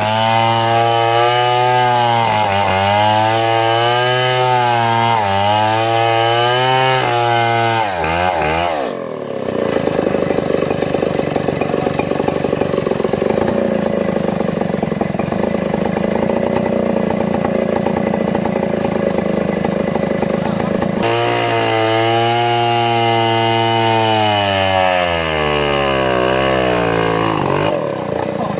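Chainsaw running, its engine note wavering up and down. About nine seconds in it turns into a rougher, denser sound for about twelve seconds, typical of the chain cutting into wood. The engine note then returns and falls away toward idle near the end.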